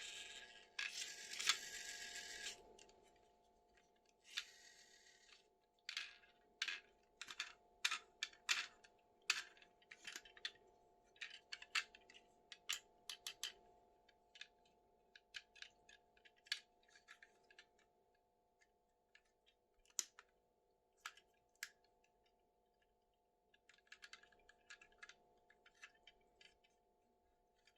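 Plastic toy and its packaging being handled: a couple of seconds of rustling at the start, then a long run of small sharp clicks and taps, thinning out and returning briefly near the end.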